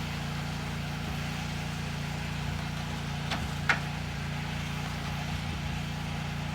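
An engine running steadily at idle, with two short sharp clicks a little past halfway through, the second one louder.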